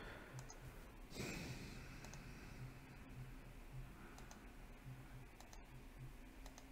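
Faint, scattered clicks of a computer mouse and keyboard, with a short breathy exhale about a second in.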